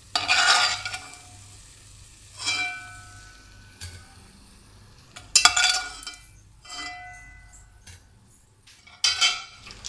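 A slotted steel spoon clinks against a steel bowl about five times as fried bread pieces go into sugar syrup. Each knock has a short hiss and rings briefly.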